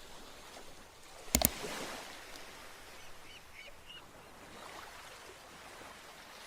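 Faint, steady wash of sea waves on a beach. A sharp knock about a second and a half in, and a few faint high chirps around three to four seconds in.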